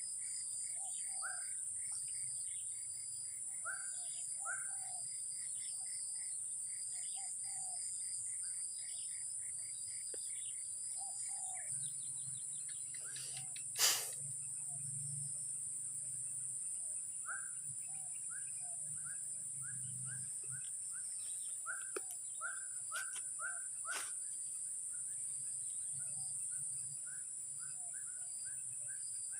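Outdoor chorus of insects, a steady high-pitched drone, with repeated short bird chirps over it. A single sharp click stands out about 14 seconds in, and a few fainter clicks come around 22 to 24 seconds.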